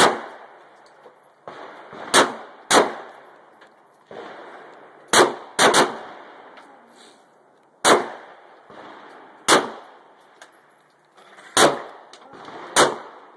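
Gunshots at a shooting range: about ten sharp reports at irregular intervals, one quick pair about halfway through, each followed by a short echo.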